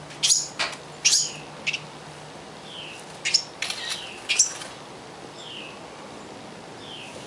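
Baby songbirds chirping in short, sharp, high-pitched bursts, bunched in the first half. A fainter falling call repeats about every second and a half.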